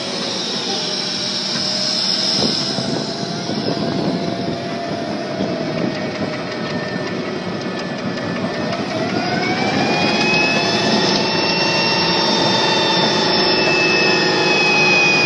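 M1A1 Abrams tank's AGT1500 gas turbine engine running, a steady rush of noise with a high whine over it. About nine seconds in, the whine rises in pitch and holds there as the turbine speeds up.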